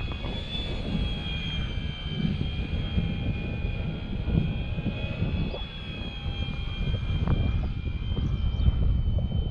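Motor and propeller of a foam RC model F6F Hellcat running in flight, a steady high whine that wavers slightly in pitch, over a low rumble.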